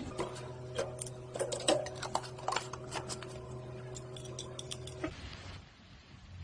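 Irregular run of sharp clicks and ticks over a steady low hum; both stop about five seconds in.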